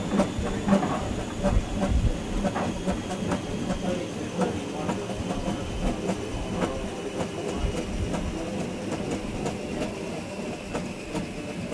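Train running along the track, heard from the driver's cab: a steady rumble with frequent clicks of the wheels over the rails. A thin high whine runs through it and slowly falls in pitch.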